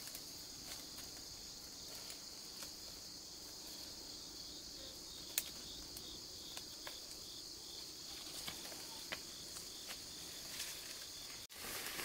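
A steady, high-pitched chorus of insects, with scattered light clicks and one sharper click about halfway through. The sound cuts out for an instant near the end.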